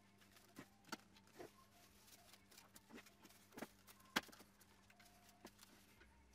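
Faint handling noises: a paper tissue rubbing over the chrome reflector and scattered small clicks and taps on the plastic headlight housing, the sharpest tap about four seconds in, over a faint steady hum.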